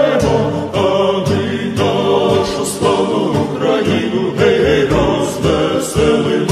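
Background choral music: a choir singing.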